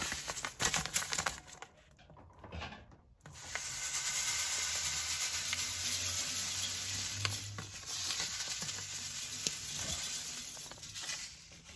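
Citric acid crystals poured from a paper packet into a stainless-steel autoclave pot. The packet rustles at first, then from about three seconds in there is a steady hiss of granules falling onto the metal, fading near the end.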